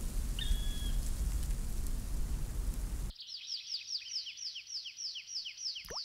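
Steady rain falling, with a single short bird note about half a second in. About three seconds in it gives way to a bird singing a fast series of descending notes, about four a second, over a quiet background.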